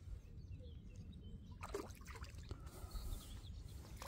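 Wind rumbling on the microphone, with a small splash about two seconds in as a gudgeon is dropped back into the canal, and faint bird chirps.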